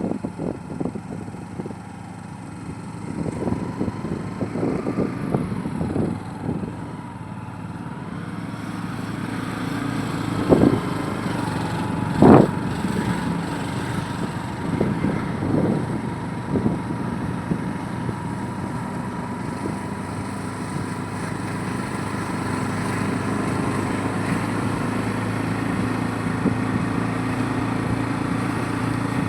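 A motor vehicle's engine running steadily, with a low hum that grows a little louder in the second half. Several short knocks break in around the middle, the loudest two about ten and twelve seconds in.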